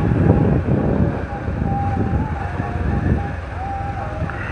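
Wind rushing and buffeting over the microphone of a phone on a moving motorcycle, with a thin wavering tone faintly through it.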